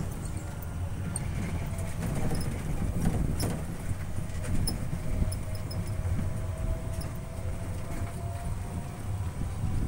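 Open-sided tourist shuttle running along a road, heard from on board: a steady low rumble of tyres and body rattle, with a faint thin whine from about three seconds in until near the end.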